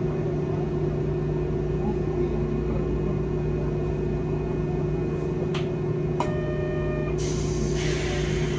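Hankai Tramway streetcar standing still with its equipment humming steadily. About six seconds in a short buzzer tone sounds, and a second later a loud hiss starts.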